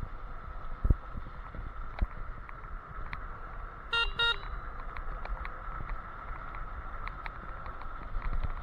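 Electric scooter riding, with a steady high whine over a low road-and-wind rumble and a few thumps from bumps. About four seconds in come two short electronic beeps in quick succession.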